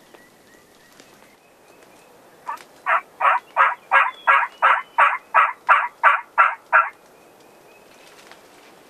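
A turkey yelping: a run of about a dozen evenly paced yelps, roughly three a second, starting a few seconds in and stopping short.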